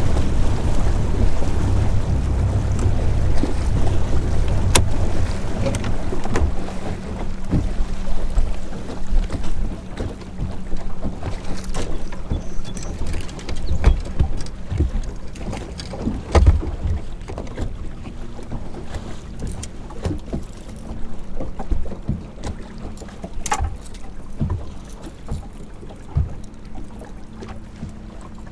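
Wind buffeting the microphone and water slapping against the hull of a bass boat, with scattered small knocks and a steady low hum. The wind rumble is heaviest in the first few seconds and then eases.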